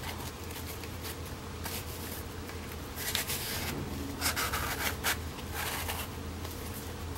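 Paper notebook being slid into the sleeves of a planner cover with a clear plastic overlay: soft rustles and scrapes of paper on cover material, several short ones a second or so apart, over a low steady hum.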